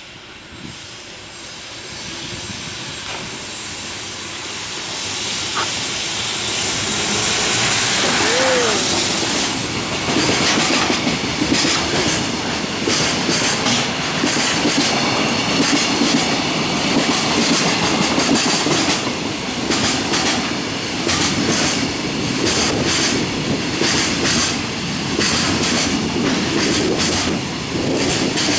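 A container freight train hauled by a JR Freight EF210 electric locomotive passes through a station without stopping. The sound builds over the first several seconds as it approaches. The container wagons then rumble past with a steady rush and a clickety-clack of wheels over rail joints.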